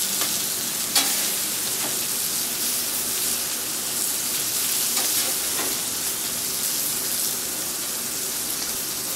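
Food sizzling steadily on a flat-top griddle set on low heat, with a few short clicks and scrapes of a metal spatula on the griddle and tray.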